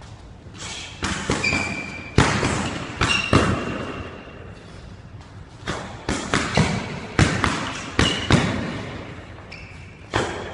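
Boxing sparring: irregular, sharp, echoing thuds of gloved punches landing and quick footwork on a hardwood court floor, starting about a second in. Several short, high-pitched sneaker squeaks on the floor are mixed in.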